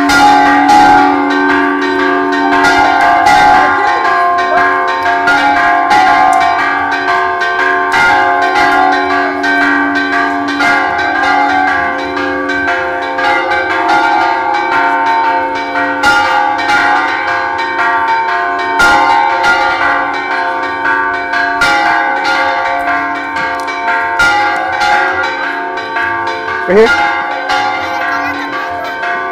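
Church bells pealing continuously, struck in quick, uneven succession so that their ringing tones overlap. A short sound rising in pitch cuts through near the end.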